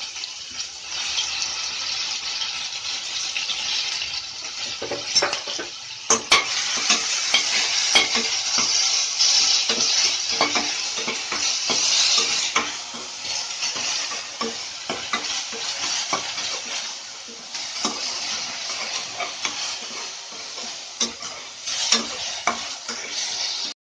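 Ginger-garlic paste sizzling in hot oil in a kadai as it is stirred, with a steady hiss and now and then a sharp click of the spoon against the pan. The sound cuts off suddenly at the end.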